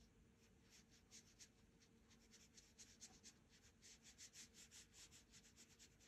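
Faint scratchy strokes of a paintbrush on watercolour paper: short quick strokes, about three or four a second, coming thicker from about two seconds in.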